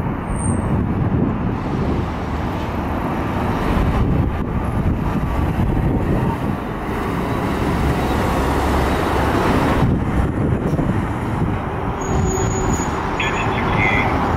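Steady vehicle and road traffic noise, a continuous rumble of engines and tyres with no clear rise or fall.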